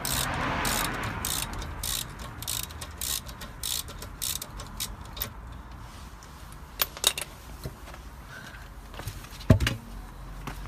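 Hand socket ratchet clicking in quick regular strokes, about three a second, as wheel bolts are wound out. After that come a few separate metallic clicks and a louder knock with a low thump near the end.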